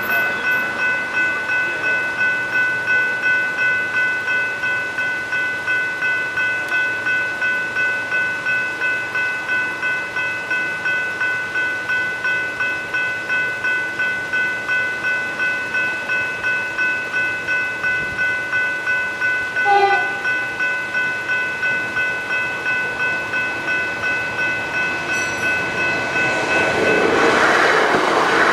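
Level-crossing electronic bells (General Signals Type 3 E-bells) ringing in an even repeating strike, about two a second, warning that the crossing is active. A short horn toot sounds about two-thirds of the way in, and near the end the noise of an electric suburban train arriving at the crossing rises over the bells.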